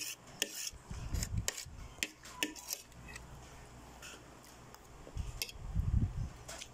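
Metal fork and spoon clicking and scraping against a plate, with chewing as chicken feet are eaten, heaviest about a second in and again near the end.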